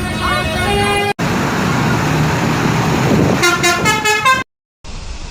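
Bus 'telolet' Basuri musical horn playing a stepped multi-note tune, which breaks off abruptly. It is followed by a few seconds of bus engine and road noise and then a second short run of horn notes about three and a half seconds in.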